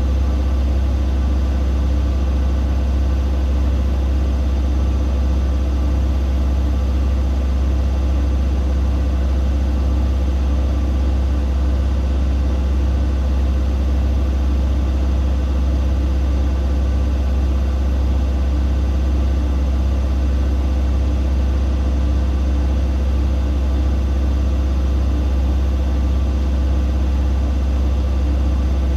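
Siemens Siwamat IQ 716 washing machine running at a steady speed, its motor and drum giving a constant, loud low hum with steady higher tones above it.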